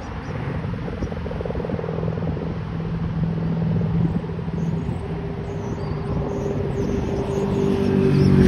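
Road traffic on a highway: a steady tyre-and-engine hum that grows louder toward the end as a vehicle approaches, with wind noise on the microphone.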